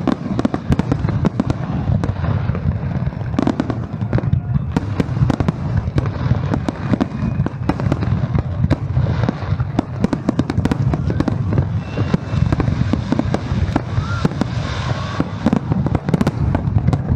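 Fireworks display: a dense, continuous barrage of bangs and crackling over a steady low rumble, with no pause.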